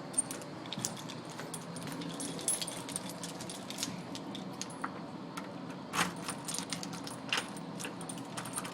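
Keys jangling and clinking irregularly as they are carried, over a steady low hum.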